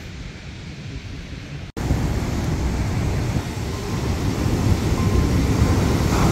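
Wind buffeting the microphone as a low rumble. It breaks off at a cut about two seconds in and comes back louder.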